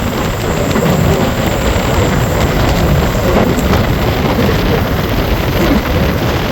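Passenger train running at speed: a loud, steady rumble and rush of wheels on rails.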